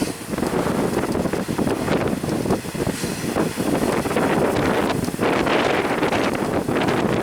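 Wind buffeting the microphone over the steady rolling rumble of a loaded coal train passing on a climb.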